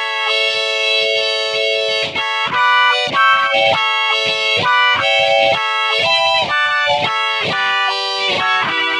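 Electric guitar played through a Boss GX-100 multi-effects with its Humanizer in picking mode, set to the vowels A and E, so each picked note gives a synthetic, vowel-like singing tone meant to imitate a Miku Stomp vocal effect. A quick single-note melody, several notes a second.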